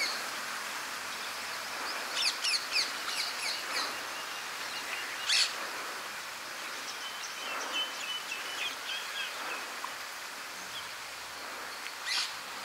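Birds chirping over a steady outdoor hiss: a quick run of high calls about two seconds in, a fainter run later, and single sharp chirps now and then.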